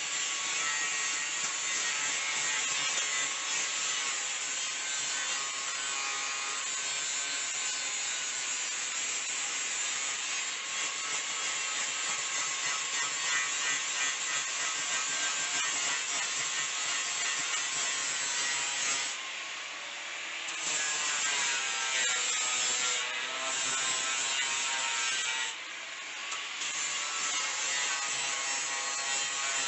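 Power grinder working the steel of an old tailgate, a steady grinding hiss with a motor whine in it. It eases off twice, about two-thirds of the way through and again near the end, and the whine climbs back up after the first break.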